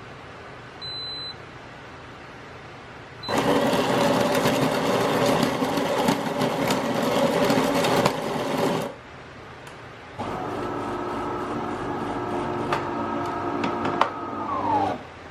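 A small electric motor, such as a household appliance's: a short high beep, then the motor runs loudly for about five seconds, stops, and runs again for about five seconds before winding down with a falling pitch near the end.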